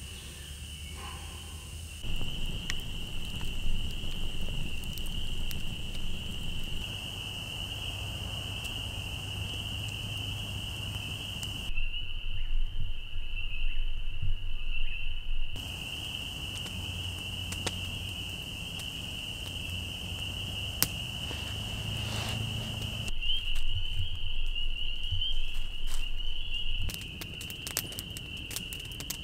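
A steady, high-pitched night chorus trilling without a break. Beneath it a campfire burns, with a run of sharp crackles and pops near the end.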